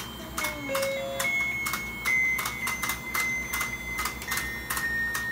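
Battery-powered toy fishing game running: its rotating pond mechanism clicks steadily about three times a second under a thin electronic tune of held beeping notes that step from pitch to pitch.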